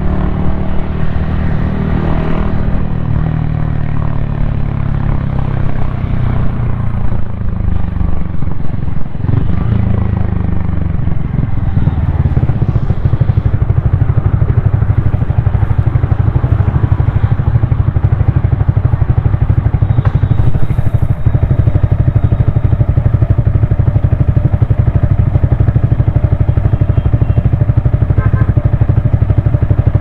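Yamaha XSR155's 155 cc single-cylinder engine running under way. Its pitch falls over the first few seconds as the bike slows, rises again around ten seconds in, then holds steady at a cruise.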